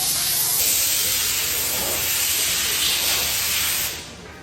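Carbonated soda fizzing with a loud, steady hiss that cuts off about four seconds in.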